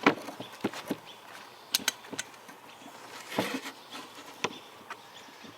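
Metal scraping and clicking as the burr is dressed off the edge of a steel chainsaw bar: short intermittent scrapes among scattered sharp clicks, the longest scrape about three and a half seconds in.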